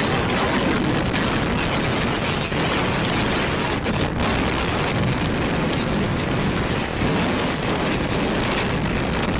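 Steady wind rushing over the microphone while riding a Yamaha R15 single-cylinder motorcycle at speed, the engine running beneath it.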